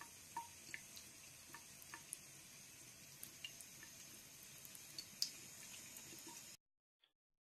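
Faint trickle of a thin faucet stream running into a bathroom sink, with light, irregular drip-like ticks. It cuts off abruptly near the end.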